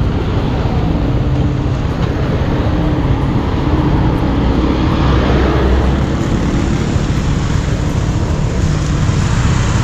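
Motor scooter engine running steadily under way, with a continuous rush of wind and tyre noise on a rain-wet road.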